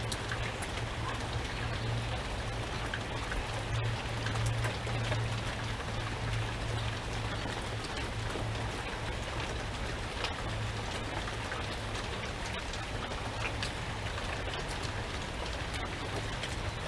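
Steady rain falling, with many individual drops ticking, over a low rumble that swells and fades slightly.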